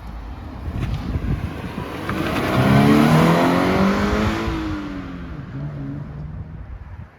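Stock 2016 Subaru BRZ's 2.0-litre flat-four accelerating past. The engine note climbs in pitch and loudness to a peak about three seconds in, then drops in pitch and fades as the car moves away.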